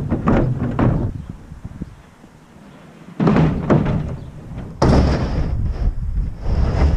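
A few heavy thuds and clunks: one just at the start, another about three seconds in and the loudest near five seconds in, each trailing off in about a second of rattle and rumble.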